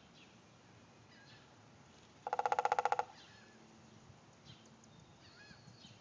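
A woodpecker's quick rattling burst, about a dozen rapid even pulses in under a second, loud against a quiet background. Faint short bird chirps come and go around it.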